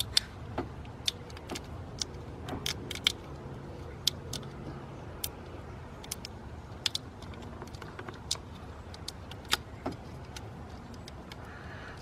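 Scattered, irregular light clicks and crackles of a corrugated plastic split wire loom being handled as wires are pushed into it by hand.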